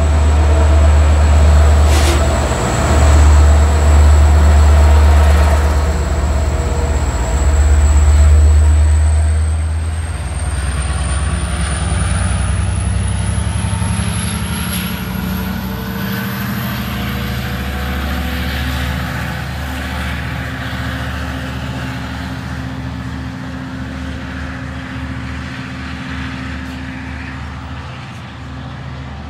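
Diesel-hauled Long Island Rail Road train with a heavy low engine rumble. After about eight seconds a high whine and lower tones rise steadily in pitch as the rumble fades, typical of the train accelerating away.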